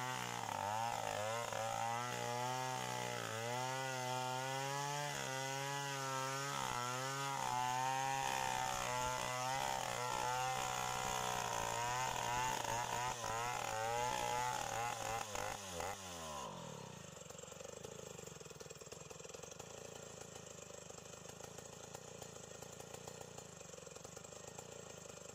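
Stihl two-stroke chainsaw cutting through a large tree trunk, its engine note wavering under load. About 16 seconds in the revs drop away and the saw settles to a quieter idle.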